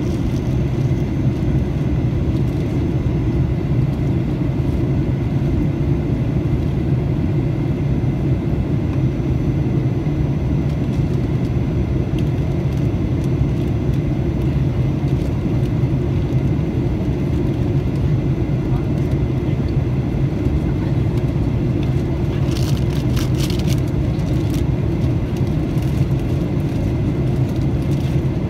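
Steady cabin noise inside a Boeing 737-800 during its descent: the CFM56 engines and the airflow make a low, even rumble, with a faint steady whine above it. A brief burst of small clicks or rattles comes a few seconds before the end.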